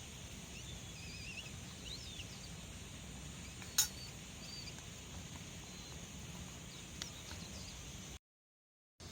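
Faint bird chirps over a steady outdoor background, with one sharp click about four seconds in and a lighter click near seven. The sound cuts out completely for about a second near the end.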